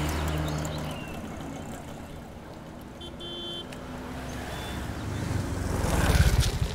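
Street traffic noise, with a motor scooter approaching and pulling up, loudest about six seconds in.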